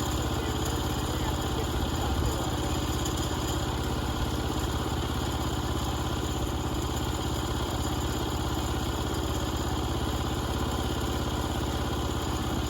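Engine of a portable band sawmill running steadily at an even speed, with no rise or fall in revs.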